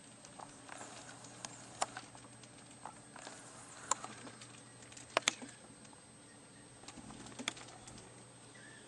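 Scattered sharp clicks and taps, a few of them loud (a close pair about five seconds in), over a faint steady hum.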